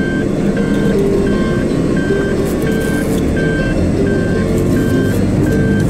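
Vehicle engine running in reverse while the car is stuck with a wheel off the track. Over it, the in-cabin reversing warning gives a short high beep about every 0.7 seconds.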